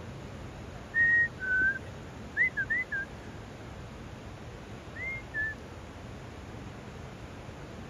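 A person whistling a few short, clear notes: two held notes, the second lower, then a quick run of slurred notes and a last up-and-down pair a couple of seconds later, over the steady rush of the river.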